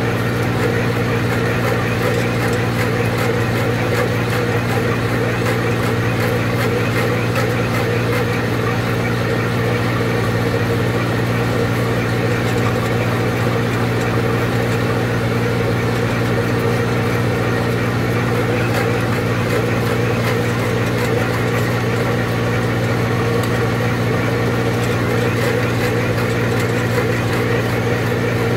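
Tractor engine running steadily, driving a hydraulic carrot-topping implement along the beds as it cuts the tops off the carrots. A constant drone that holds the same pitch and level throughout.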